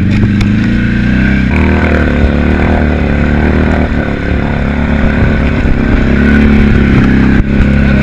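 Polaris RZR side-by-side's engine running steadily under load as it wades through deep water, its note changing about a second and a half in, with water splashing and washing along the sides of the machine.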